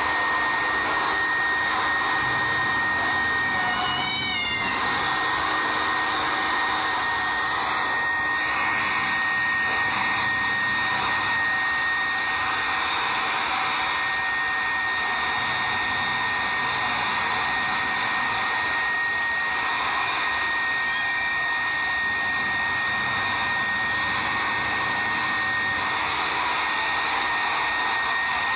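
Hand-held hair dryer blowing steadily with a thin high whine while drying a wet cat's thick fur; the cat meows a few seconds in.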